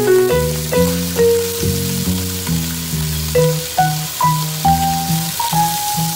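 Background music with a melody and bass line over a steady sizzle of pork neck slices pan-frying in oil, part-way cooked.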